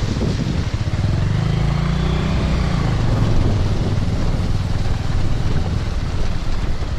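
Motorcycle engine running at low speed, with wind noise on the microphone.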